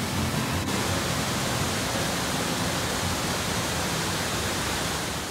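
Waterfall and gorge stream rushing steadily: an even, unbroken hiss of falling water.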